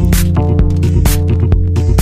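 Electronic dance music with a steady beat of hi-hat-like hits over a deep held bass and sustained chord tones.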